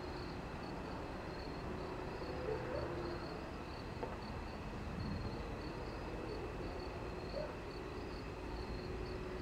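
Crickets chirping in short, high-pitched pulses about twice a second, over a steady low background noise.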